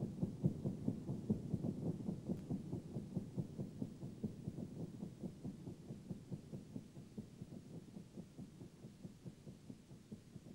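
Electronic soundtrack effect: a rapid, low, heartbeat-like throbbing pulse that fades away steadily.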